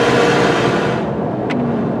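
Engine and road noise inside the cab of a 2009 Nissan Frontier driving at highway speed, the rush easing about a second in and a single sharp click near the end. The truck is short of power from a clogged catalytic converter.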